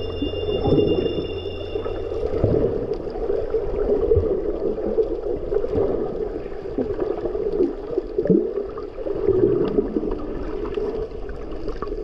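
The song's last held chord stops about two seconds in, leaving muffled underwater sound from a camera below the surface: water gurgling and sloshing in an uneven wash.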